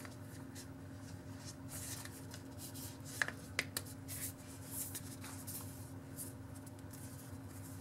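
Soft rubbing and scattered light clicks of a smartphone being pressed back into its black Spigen case by hand.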